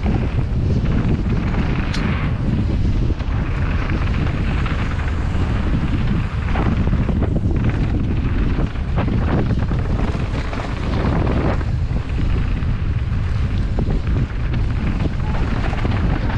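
Wind buffeting an action camera's microphone as a downhill mountain bike descends at speed, with tyres running over dirt and loose gravel and scattered clicks and knocks from the bike over the rough ground.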